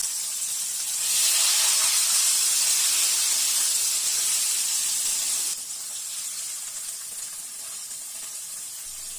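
Flour-coated chicken breast pieces frying in hot oil in a pan, a steady sizzle. It grows louder about a second in and drops to a quieter sizzle a little past halfway.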